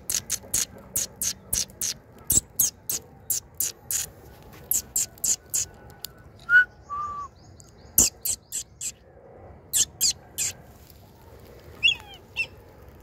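A bird calling in a rapid series of short, sharp, high-pitched chirps, about three a second. Around the middle the chirps stop, two brief lower whistled notes sound, and then the chirps return more sparsely.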